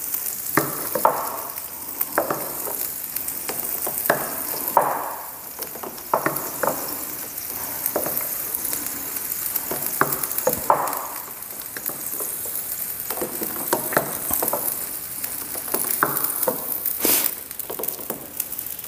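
Stainless steel ladle stirring and scooping dosa batter in a glass bowl, with irregular clinks of the ladle against the bowl, one louder near the end, over a steady high hiss.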